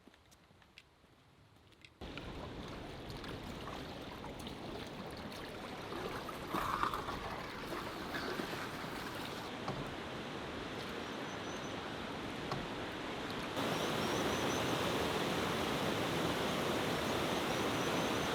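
Steady rush of water noise, starting abruptly about two seconds in and growing louder near the end.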